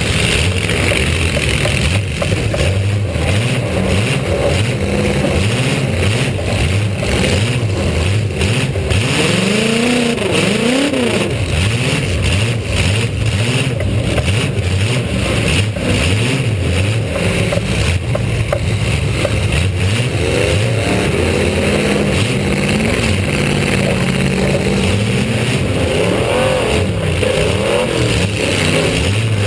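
V8 demolition-derby car engines running hard and revving, the pitch rising and falling repeatedly in bursts about a third of the way in and again late on, over a steady loud rumble with frequent short knocks.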